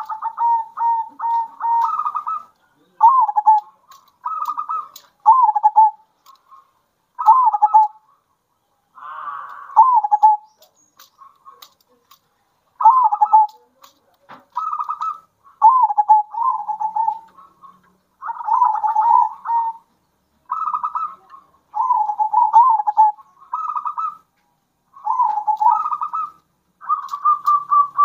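Zebra doves (perkutut) cooing in a string of short phrases, one after another with brief gaps. Each phrase is a fast rattling run of notes that drops in pitch.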